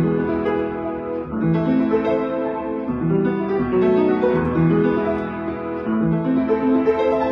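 Upright piano played solo: a classical piece in a continuous stream of overlapping notes.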